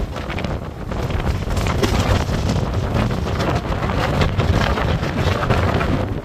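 Strong storm wind blowing in gusts, buffeting the microphone with heavy wind noise that swells through the middle and eases near the end.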